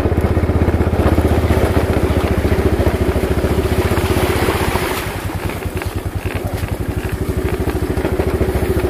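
Small motorcycle engine running at a steady throttle while riding, its rapid firing pulses easing off briefly a little past halfway and then picking up again.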